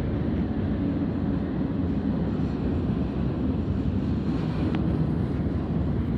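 Steady low rumble of a train approaching in the distance.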